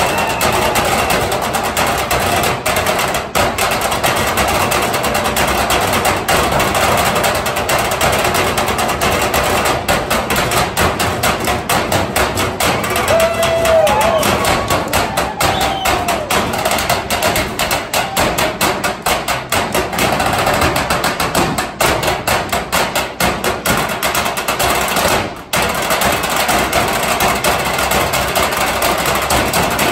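Metal trash cans played as drums by three drummers with sticks: a fast, dense run of strikes on the cans in a driving rhythm, with a brief break about 25 seconds in.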